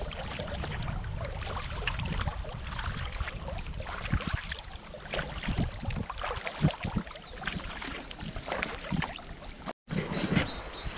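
Kayak paddle strokes splashing and dripping in river water over a steady low wash of water and wind, with a brief break in the sound near the end.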